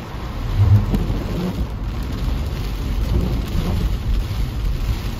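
Heavy rain falling on a car's roof and windshield, heard from inside the cabin, with a steady low rumble underneath.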